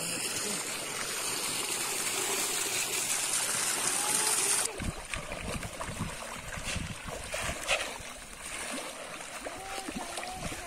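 Water rushing steadily, then cut off abruptly about four and a half seconds in; after that, quieter water with scattered splashes.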